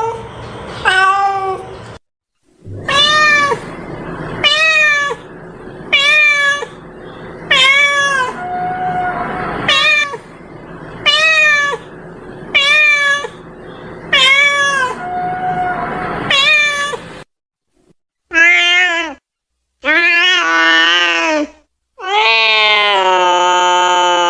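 Domestic cat meowing over and over, about one meow every second and a half, each rising then falling in pitch. After a short pause come a few longer meows, the last one drawn out. This is a cat-calling lure recording meant to attract cats.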